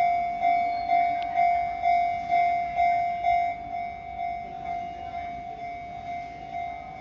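Japanese railway level crossing warning alarm ringing, a repeated clang about twice a second over a steady tone, somewhat quieter from about four seconds in.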